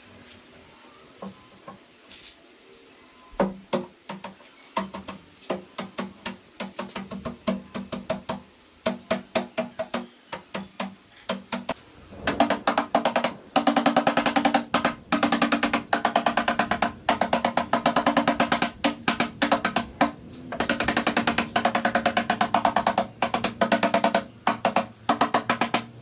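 Rubber mallet tapping a plywood brace frame down onto a wooden subwoofer box, the hollow box ringing under the blows. It starts as a few separate knocks a second, then becomes a quick run of rapid taps from about halfway in, with a brief break near the end.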